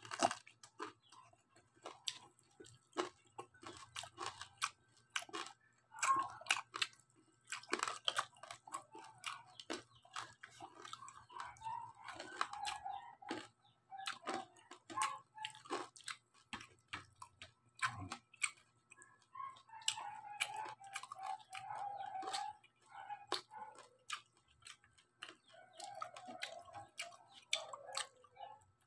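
Close-up chewing and crunching of crispy fried pork belly (lechon kawali), with many sharp crackles and wet mouth clicks.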